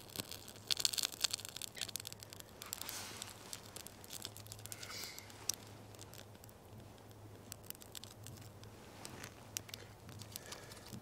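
Dry crackling and rustling of birch bark and thin wood shavings being handled as a small tinder fire catches, with quick irregular crackles thickest in the first couple of seconds and a short hiss about three seconds in.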